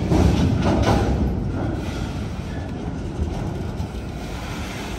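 Freight train cars rolling past on the track: a steady low rumble of wheels on rail, with a louder rattle of wheel clatter in the first second or so.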